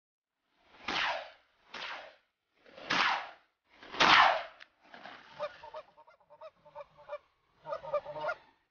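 Canada geese honking: four loud, harsh honks about a second apart, then a quicker run of shorter honks.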